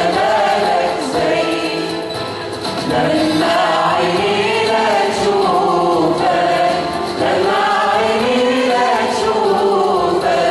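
Church choir singing an Arabic Christian hymn, many voices carrying the melody together without a break.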